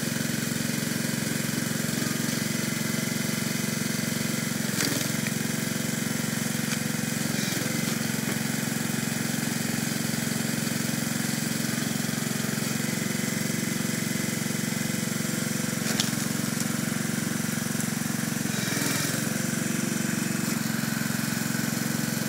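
Small gasoline engine of a home-built hydraulic log splitter running steadily, its pitch dipping briefly three times as the ram comes under load splitting logs. A single sharp crack about sixteen seconds in.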